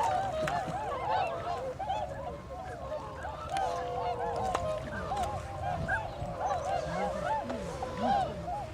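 A flock of large birds calling at once: many short honking calls overlapping, several a second, without a break.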